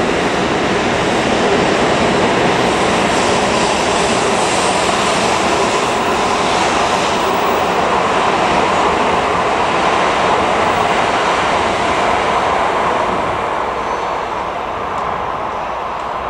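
An N700A Shinkansen bullet train passing through the station at speed without stopping, a loud steady rush of wheels and air that fades away near the end as the last cars go by.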